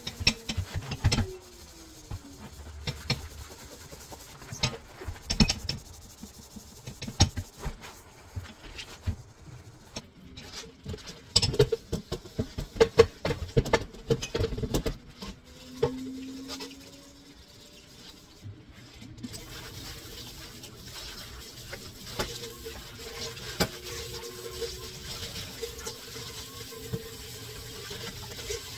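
Household items and dishes clattering and knocking in quick, irregular strikes, busiest around the middle, then a steady rush of running water in the last third.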